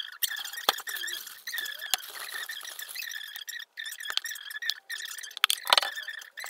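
Kitchen handling sounds from food prep: scattered clicks and knocks of containers and a package being handled, with a louder rustling shake about three-quarters of the way through, over a steady high-pitched whine.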